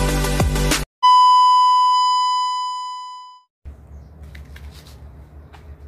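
Background music cuts off, then a single loud electronic beep tone at one pitch fades away over about two seconds. After it comes a low background rumble with a few faint clicks.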